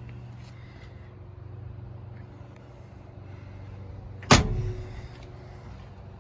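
A 1968 Ford Mustang GT Fastback's V8 idling steadily, and about four seconds in the car's door slams shut with one loud bang.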